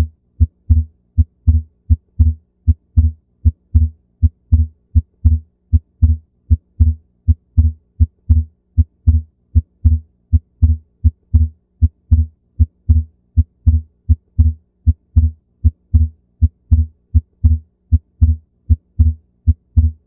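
Human heart sounds beating in a steady lub-dub rhythm, a little over one beat a second, with a faint steady hum underneath. The second sound (S2) is heard split in two, the physiological splitting of S2 that comes from the aortic valve closing just before the pulmonary valve.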